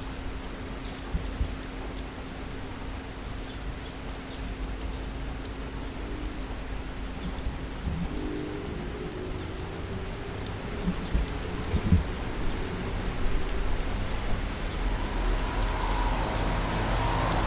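Steady rain falling on city surfaces, with scattered individual drop impacts. A low steady hum runs under the first half, and a vehicle grows louder near the end.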